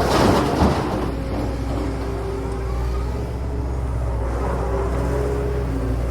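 Excavator's diesel engine running steadily, with a loud rough burst of noise in the first second and a hydraulic whine rising and falling in pitch afterwards as the machine works.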